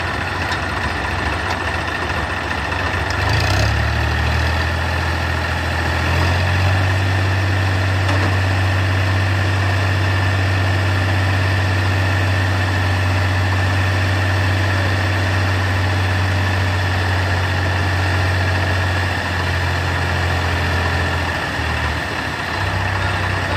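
Sonalika DI 50 tractor's diesel engine running steadily while the hydraulic tipper raises the bed of a loaded sand trolley. The engine note strengthens a few seconds in and holds, wavering and briefly dipping near the end.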